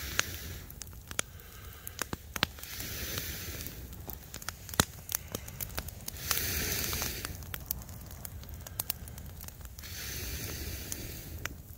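Wood campfire of logs and dry twigs burning, with frequent sharp pops and crackles over a hiss that swells and fades a few times.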